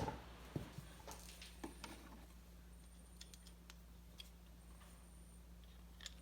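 A knock, then scattered light clicks and taps of small objects being handled, over a steady low hum.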